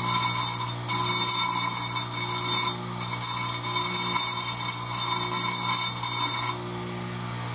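A bench grinder's motor hums steadily while an abrasive dressing stick is pressed against its spinning pink grinding wheel, giving a shrill, high grinding hiss. The grinding comes in three passes with short breaks about one and three seconds in, then stops about six and a half seconds in, leaving the motor humming. The wheel's edge is being dressed sharper to correct a back slope on a square-ground chainsaw tooth.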